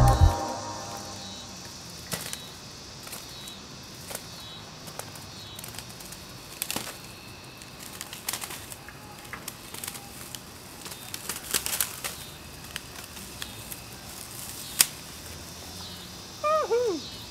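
Plastic wrap rustling and crackling with scattered sharp crackles as the painted sheet is torn and pulled down. Near the end, a short squeak falling in pitch, heard about three times in quick succession.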